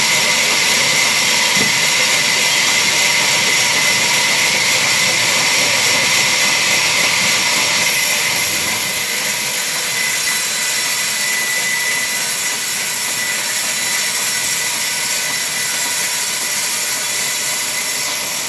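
Vertical band saw in a sawmill running and ripping a log fed through its blade. It makes a loud, steady hiss with a high, even whine, easing off slightly about eight seconds in.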